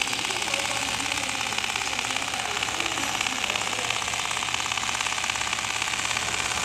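A JOOKE CNC template sewing machine stitching quilting lines through a down-jacket sleeve panel at speed: a rapid, even chatter of needle strokes over a low steady hum.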